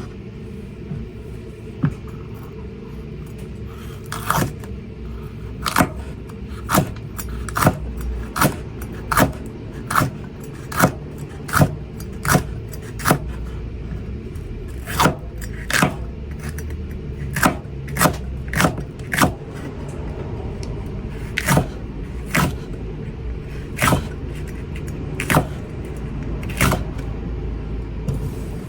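Kitchen knife cutting a green pepper on a cutting board: a long series of crisp chops, about one or two a second, with brief pauses. A steady low rumble runs underneath.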